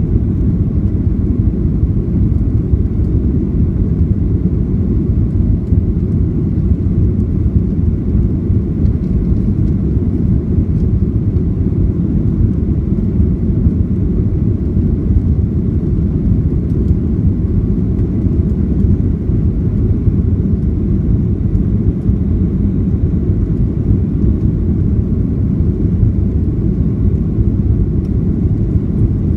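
Steady low rumble of a Boeing 737-800's CFM56-7B jet engines and rushing air, heard inside the passenger cabin during the climb after takeoff.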